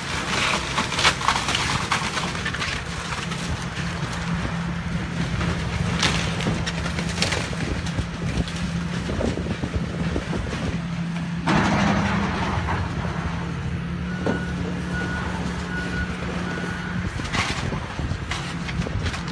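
Hitachi hydraulic excavator's diesel engine running steadily under load while it tears down a building, with crashes and clatter of falling debris; one heavy crash about two-thirds of the way through. Four short high beeps sound near the end.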